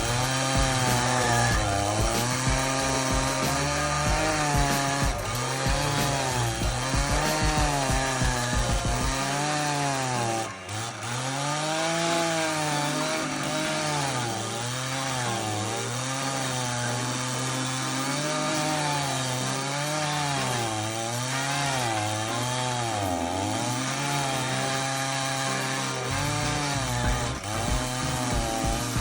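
Two-stroke chainsaw engine driving a stump-grinding cutter into a tree stump, running at high revs. Its pitch sags and climbs back again and again as the cutter bites into the wood and clears, with a brief dip in level about ten seconds in.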